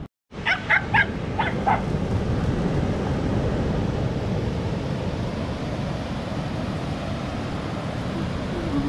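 A dog yips about five times in quick succession in the first two seconds. A steady rushing background noise carries on after the yips.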